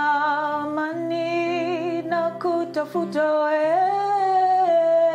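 A woman singing long held notes with vibrato to her own strummed acoustic guitar, the voice rising to a higher held note near the end.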